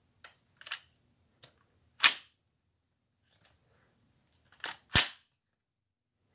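A homemade Lego brick gun with a drum magazine being cocked and fired. A few small plastic clicks come first, then two sharp snaps about three seconds apart, the second with a quick click just before it.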